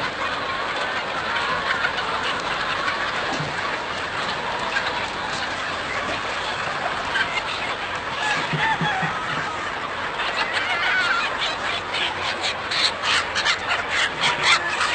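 A very large flock of chickens clucking and calling all at once in a dense, continuous din. In the last few seconds a quick run of short scratchy noises rises over it, several a second.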